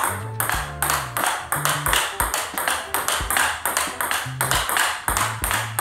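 Table tennis rally: the ball knocking sharply off rackets and bouncing on the table, several knocks a second, over background music with a steady bass line.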